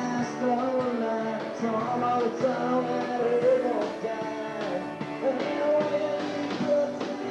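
Rock and roll band music with a steady beat.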